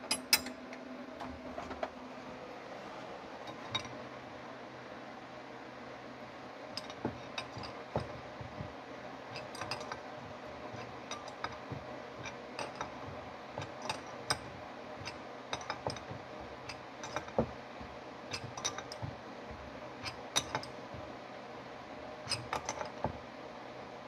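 Irregular clinks and clicks of metal hand tools and small carburetor parts being picked up, set down and handled on a wooden workbench during carburetor reassembly.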